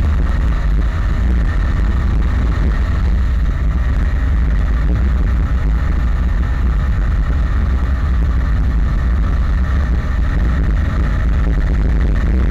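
Yamaha Sniper 150 motorcycle's single-cylinder four-stroke engine running at a steady speed, under a loud, heavy rush of wind over the camera microphone.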